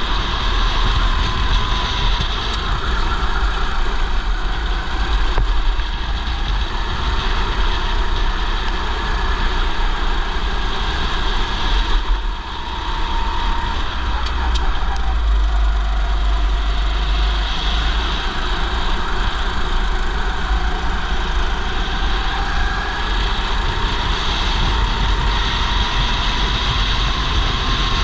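Racing kart engine running hard under race load, its pitch rising and falling with speed through the corners. Heavy wind buffeting on the helmet-mounted camera adds a low rumble.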